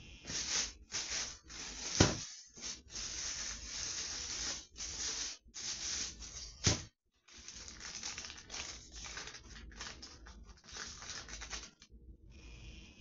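Packaging being crinkled and rustled in irregular bursts, with two sharp knocks, the second about seven seconds in.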